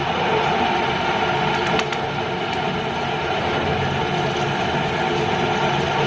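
CNC drilling machine running steadily while drilling steel, a dense mechanical whirr and grind, with one short click about two seconds in.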